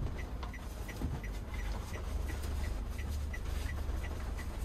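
Toyota Calya cabin: a steady light ticking about three times a second, typical of the turn-signal indicator, over a low engine and road hum.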